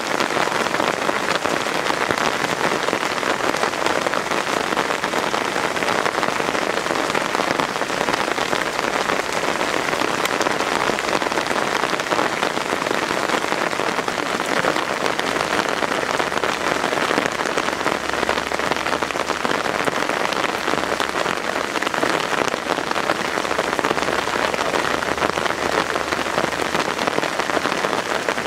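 Heavy downpour: a dense, steady hiss of rain pouring down and splashing on the enclosure's wet surfaces.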